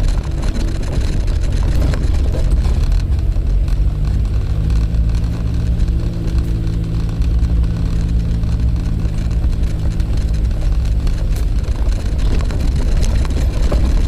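Suzuki Jimny running on the road, a steady low rumble; from about four seconds in a steady hum rises over it and fades out around eleven seconds.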